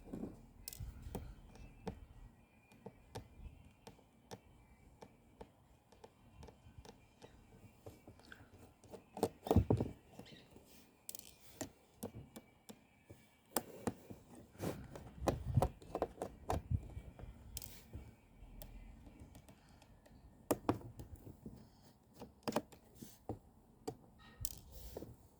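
Small screwdriver working tiny screws out of a tablet's circuit board, with faint scattered clicks and taps as the screws and tool are handled and set down, in a few short clusters.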